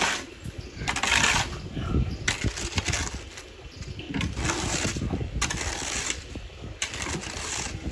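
A shovel scraping through gritty concrete mix on the ground, hand-mixing concrete, in about five rough scraping strokes of about a second each.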